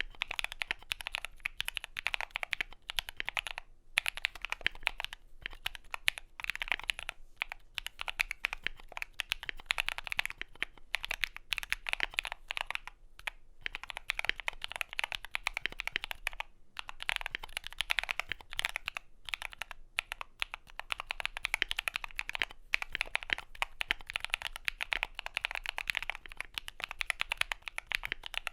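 Continuous typing on a Skyloong GK68XS aluminium-case mechanical keyboard with lubed Akko CS Blue switches and PBT keycaps: rapid keystrokes that break off in short pauses every few seconds.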